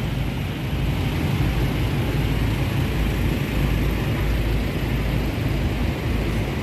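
Steady road traffic noise, with the low engine rumble of a minibus and cars moving slowly past close by.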